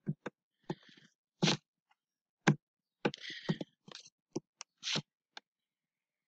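A dozen or so short, irregular clicks and knocks close to the microphone, with two brief rustles about a second and about three seconds in; the sounds stop after about five and a half seconds.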